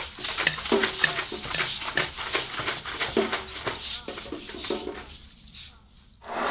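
Music-room percussion played as a nature soundscape: shakers and rattles making a steady hissing rattle, with short pitched animal-like calls over it. It fades almost to nothing near the end, then a louder burst comes in just as it closes.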